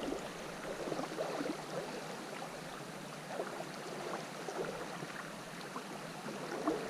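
Shallow river current rushing steadily, with small irregular gurgles and splashes of water throughout.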